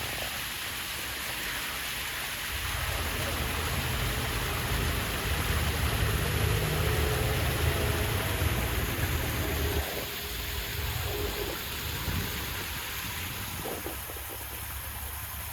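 Waterfall rushing steadily. A low rumble comes in a few seconds in and drops away about ten seconds in.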